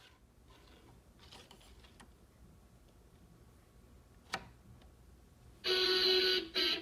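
Faint handling clicks on a toy desk and computer set, a sharp click about four seconds in, then near the end the toy computer starts playing a loud electronic musical sound effect with a guitar-like tone.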